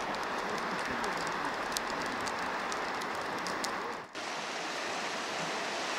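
Steady rushing hiss of a fast-flowing mountain river, even throughout, with faint high clicks in the first half and a brief drop just after four seconds.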